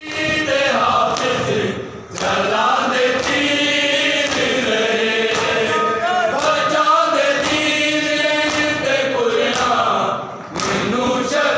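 Men's voices chanting a noha together in phrases, over a steady beat of hands striking chests in matam, a little faster than one stroke a second. The chant breaks briefly twice, about two seconds in and near the end.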